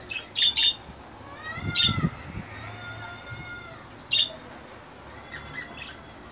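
Budgerigars chirping in short, sharp notes, several in the first second and one about four seconds in, mixed with longer drawn-out calls that rise and fall in pitch.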